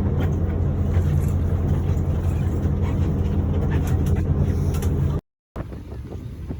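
Steady low drone of a tour boat's engines heard on board. It cuts off abruptly about five seconds in, and after a moment of silence a quieter background follows.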